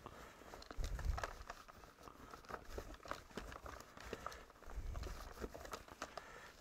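A cloth being rubbed over the plastic parts of a Dyson V10 Animal's dismantled soft roller cleaner head, with small clicks and knocks as the parts are handled. There are low thuds about a second in and again around five seconds.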